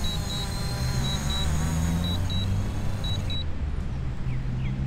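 DJI Mavic Pro quadcopter buzzing as it hovers low and comes down onto the grass, with short high beeps in pairs. The buzz and beeps cut out about two-thirds of the way through, leaving a low rumble.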